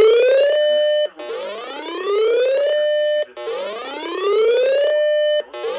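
Electronic whoop alarm tone: a harsh, buzzy tone rises in pitch for about a second and a half, holds briefly, then cuts off, repeating about every two and a quarter seconds.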